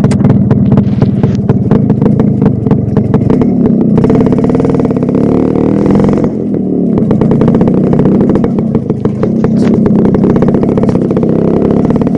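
Yamaha RX100's two-stroke single-cylinder engine running as the bike rides off, opened up about four seconds in and eased off about two seconds later. The rider puts its rough morning sound down to two-stroke oil poured into the fuel tank settling overnight.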